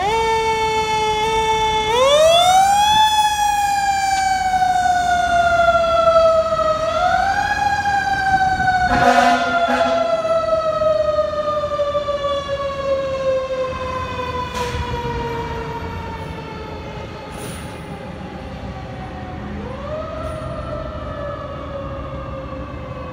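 Fire engine siren wailing as the engine pulls out and drives off: the pitch winds up sharply several times and falls away slowly in between, with a short horn blast about nine seconds in. The siren grows fainter in the second half as the truck moves away.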